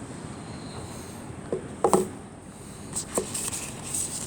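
Packaging of a Gan 356M speedcube being opened and handled: a few light knocks and clicks about one and a half to two seconds in and again after three seconds, then rustling near the end.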